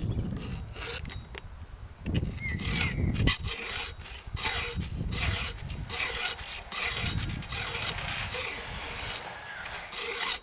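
Steel file rasping across the cutters of a chainsaw chain in a filing guide, in repeated strokes a little under one a second, sharpening the cutters one after another.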